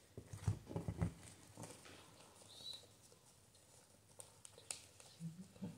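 Tarot cards being handled and laid down on a cloth-covered table: a quick cluster of soft taps and rustles in the first second, then scattered taps, with a few more near the end.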